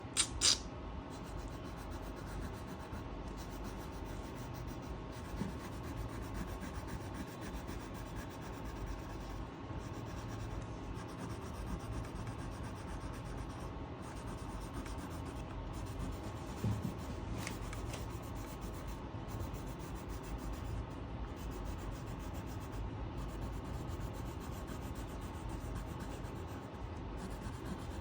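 Steady scratchy rubbing of a colouring tool stroked back and forth on paper as an area is filled in, with a brief sharp tap shortly after the start and another about halfway through.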